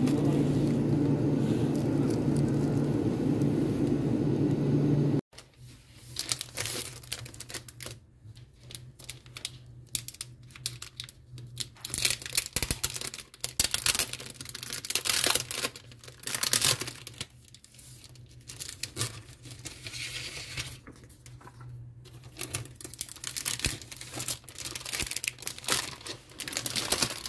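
Clear plastic sleeve crinkling and rustling in irregular bursts as a paper study planner is handled and slid out of it. For the first five seconds there is instead a steady shop hum, which stops abruptly at a cut.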